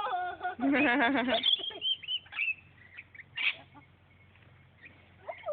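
Birds calling at a hand-feeding with bread: a run of loud, wavering calls in the first second and a half, then scattered short, high chirps.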